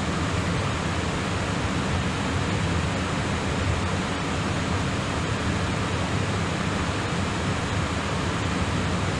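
Steady cockpit noise of a Boeing airliner taxiing: an even rush of air and engine noise with a low hum underneath, unchanging throughout.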